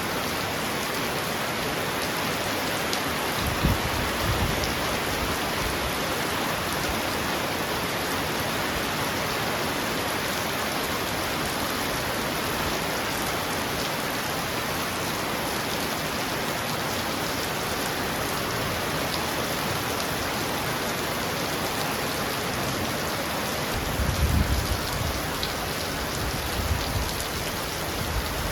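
Heavy rain falling steadily on a roof, a dense, even hiss. Short low rumbles come through about four seconds in and a louder, longer one near the end.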